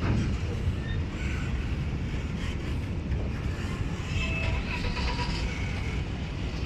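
A train rolling past with a steady low rumble, with a few short high-pitched squeaks around the middle.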